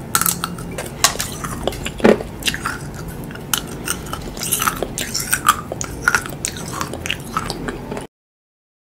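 Edible fake fingernails bitten and chewed close to the microphone, ASMR style: a quick, irregular run of sharp crunches and clicks that cuts off abruptly about eight seconds in.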